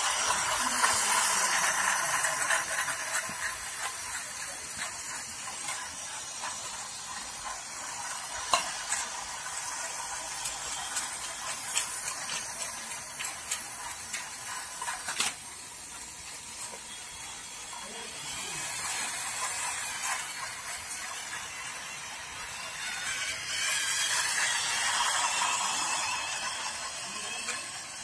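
Model train running on plastic track, its small motor and wheels giving a steady rattling whirr that is loudest as it passes close about a second in and swells again twice later, with a few sharp clicks from the track joints.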